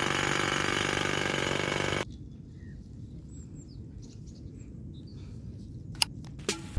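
A loud, dense, steady noise cuts off suddenly about two seconds in. It leaves quiet outdoor ambience with a few faint bird chirps, then two sharp clicks near the end.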